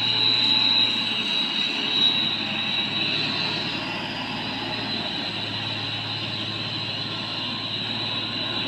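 Heavily loaded Mitsubishi Fuso Fighter dump truck's diesel engine labouring as it climbs a steep hairpin, a steady heavy drone. A constant high thin tone runs over it.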